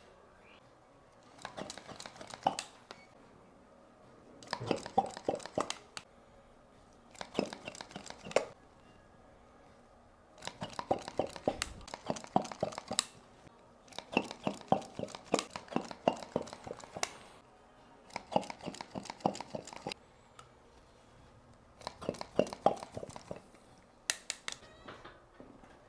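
Repeated bursts of dense crackling and crinkling, about eight in all, each lasting one to three seconds with short quiet pauses between them.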